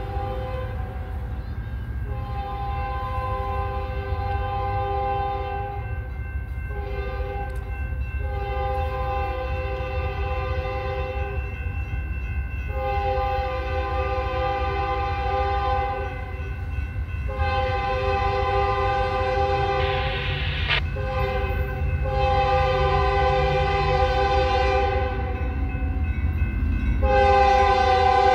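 Freight locomotive air horn sounding a chord in a series of long and short blasts as the train approaches grade crossings, over a steady low rumble. The blasts get louder toward the end.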